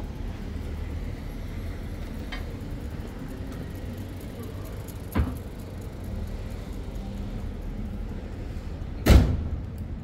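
City street ambience with a steady low hum. There is a sharp click about five seconds in, and near the end a loud bang with a short ringing tail, the loudest sound here.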